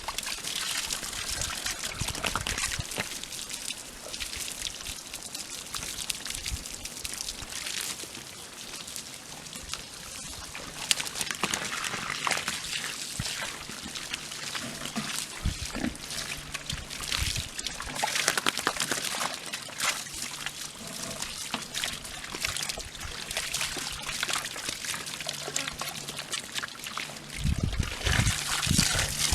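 Water trickling and pouring as the pigs' water fills, with the pigs grunting and moving about. A faint low steady hum comes in about a third of the way through, and a few louder low knocks come near the end.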